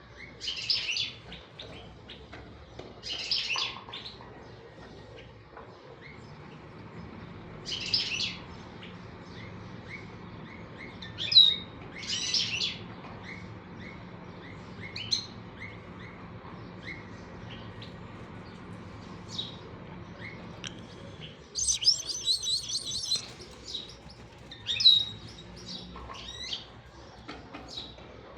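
Small birds chirping in short, scattered bursts every few seconds, with a denser spell of rapid chattering about three quarters of the way through.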